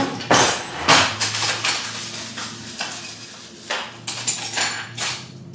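A glass straw clinking against ice and a cup as a mixed drink is stirred: several sharp clinks with some rattling between them.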